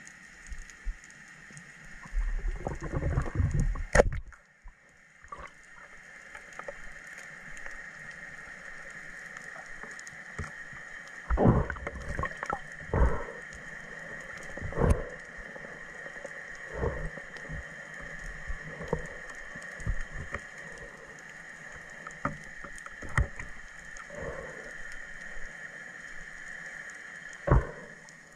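Underwater sound of a speargun shot: a sharp snap about four seconds in, after a couple of seconds of low rumbling. It is followed by scattered low thumps and knocks over a steady high-pitched hum.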